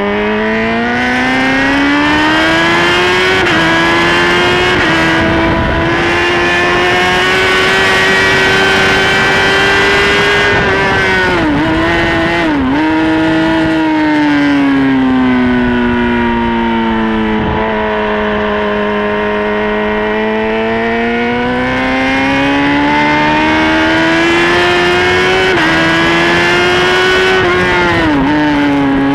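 Sport motorcycle's engine at high revs on a race track, heard close up from the tail with wind rush. The revs climb at the start, step through gear changes and dip sharply twice about twelve seconds in, sag slowly through the middle, then climb again and dip once more near the end.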